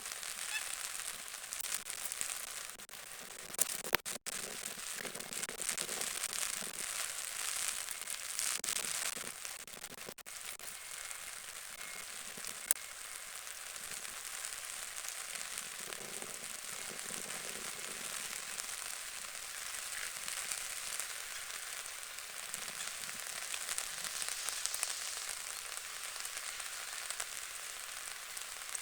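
Steady rain pattering and crackling on the lake water, with a few sharp clicks standing out.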